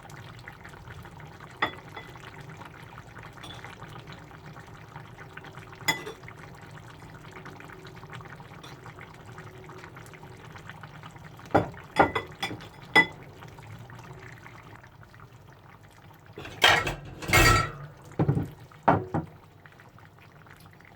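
Kitchen handling sounds over a steady low hum: a few sharp clinks of dishes and utensils, a quick run of clinks about twelve seconds in, and louder, longer scraping and rattling near the end.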